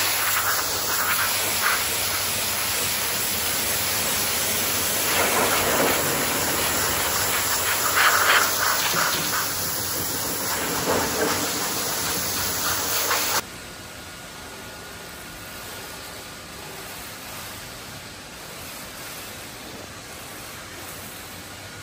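High-pressure washer lance spraying water onto a foam-covered truck fuel tank, rinsing off the snow foam: a loud steady hissing spray that swells now and then. It cuts off suddenly about two-thirds of the way through, leaving a quieter steady hiss.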